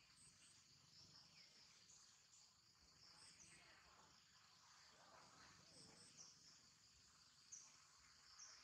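Very faint, steady, high-pitched insect chirring, with a few faint short chirps over it.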